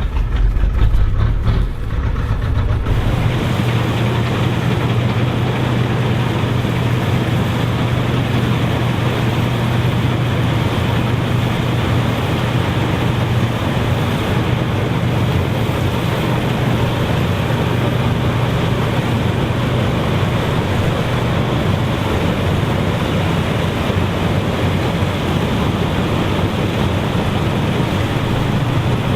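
Massey Ferguson 630S self-propelled combine harvester working under load, its engine and threshing machinery running together as a steady hum under a broad rushing noise. The first few seconds have a deeper rumble that gives way to the steady sound about three seconds in.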